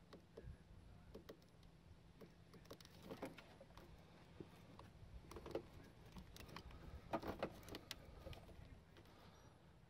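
Near silence, with a few faint rustles and light clicks of hands handling a taped wiring harness and its plastic connector, the most noticeable a small cluster about seven seconds in.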